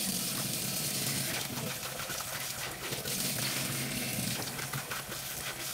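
Tap water running into a saucepan of rice in a stainless steel sink while the rice is swished by hand and the cloudy rinse water is poured off: washing the rice before cooking.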